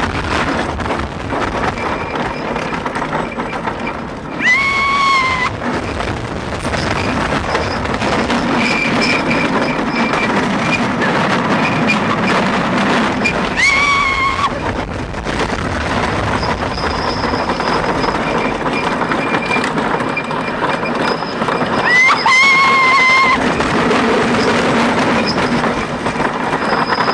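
Rolling Thunder wooden roller coaster train running over its track, a steady rumble of wheels and rushing wind. Three shrill cries of about a second each, about 5, 14 and 22 seconds in, are riders screaming on the drops.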